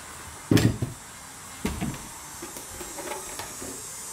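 Handling noises: two sharp knocks about half a second and a second and a half in, then a few faint taps, as a utility knife is set down and a tub of carpet adhesive is picked up.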